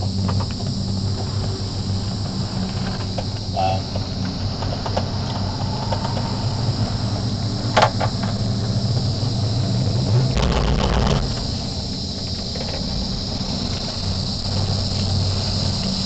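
Steady low hum of a cable car gondola running along its cable, under a steady high insect drone from the rainforest. About eight seconds in, a sharp click is followed a couple of seconds later by a brief low rumble as the cabin passes a support tower.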